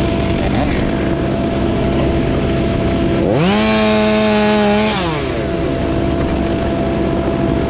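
Chainsaw revving: its pitch rises sharply to full throttle about three seconds in, holds for about a second and a half, then drops back. Another engine runs steadily underneath throughout.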